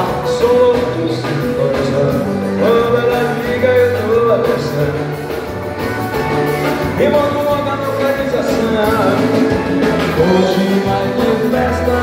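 Live dance band playing amplified through the hall's PA speakers: a steady bass line under a pitched lead melody, with no break.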